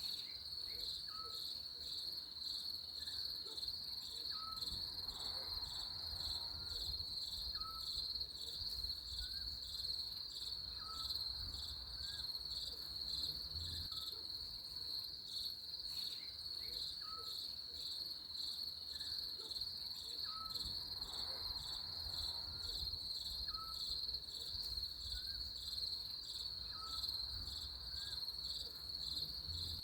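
A chorus of chirping insects: a steady, rapidly pulsing high trill. Short, faint rising chirps sound lower in pitch about every second or two.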